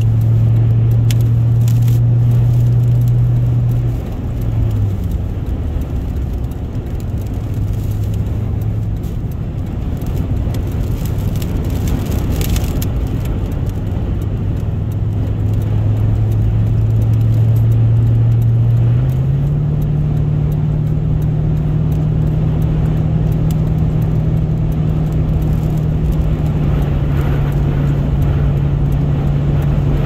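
Inside the cab of a Toyota Tundra driving down a highway: the engine hums low and steady under the rush of road and wind noise. The hum drops in pitch about four seconds in and rises again about nineteen seconds in.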